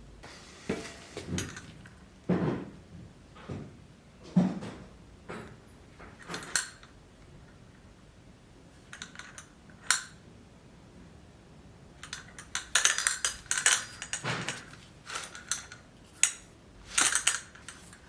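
Irregular knocks and light metallic clinks of hard objects being handled and set down, with a busier run of clattering about two-thirds of the way through and another short burst near the end.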